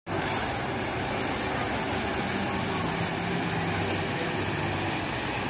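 Steady outdoor background din: an even rushing noise with a low hum beneath it, starting abruptly at the very beginning.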